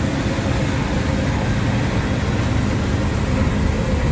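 Bus engine running steadily, heard from inside the front of the cabin, with a steady hiss of rain and tyres on the wet road.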